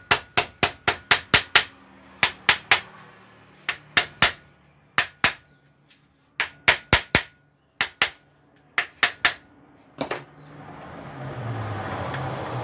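Hammer tapping on the steel body of a Kawasaki Ninja 250 rear monoshock held in a bench vise: sharp, ringing metal-on-metal strikes in quick runs of two to seven, about three a second, with short pauses between runs. The tapping ends with one last strike about ten seconds in, and a low engine hum then builds.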